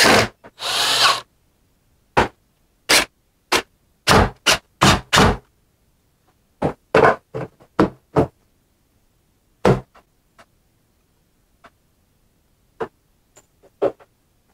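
A cordless drill runs briefly, driving screws to close up a plastic relay switch box. It is followed by a string of separate knocks and thunks at irregular intervals as the box is handled and hung on a wall.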